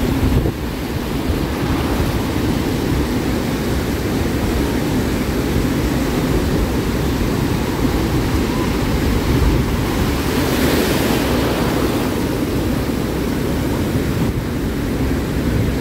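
Ocean surf washing onto the beach, a steady rush that swells louder about two-thirds of the way through as a wave comes in, with wind buffeting the microphone.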